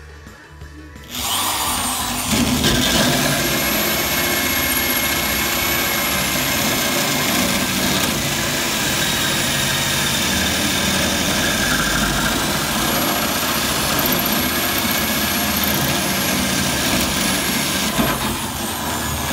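Corded electric drill spinning a hole saw through a steel car frame rail, cutting a hole to notch the rail for a tube. It starts about a second in, runs steadily at one speed, and stops near the end.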